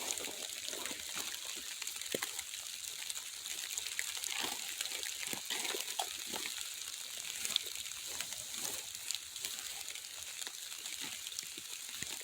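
Heavy rain falling: a steady hiss with many small ticks of drops striking.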